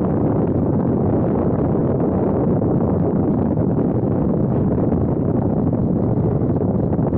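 Heavy wind buffeting on the microphone at speed, a steady low rumble that largely covers the Rotax engine running in second gear.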